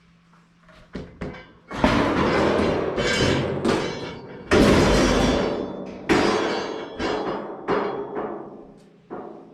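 Metal sheep-handling panels clanging as the handling system is taken apart: a series of about six loud metal crashes, each ringing out as it fades.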